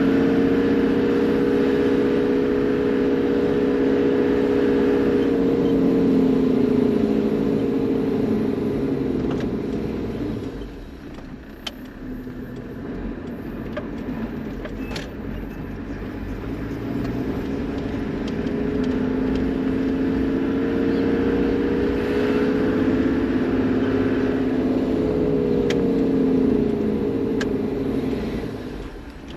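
Toyota Land Cruiser HZJ78 Troopy driving, its 1HZ diesel straight-six and drivetrain giving a steady drone with a low whine. This eases off about ten seconds in, stays quieter for several seconds, then builds again and fades near the end.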